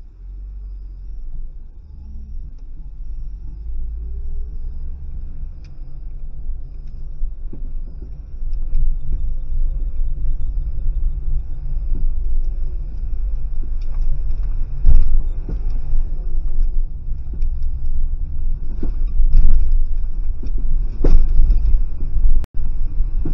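A car driving, heard from inside the cabin: a steady low rumble of engine and road that grows louder over the first several seconds, with a few sharp knocks later on. The sound cuts out briefly near the end.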